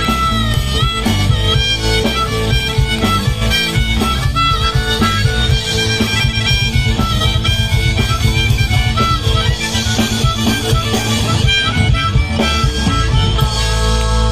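Instrumental ending of a rock band song: a stepping lead melody over guitar, bass and drums, settling into a held chord near the end.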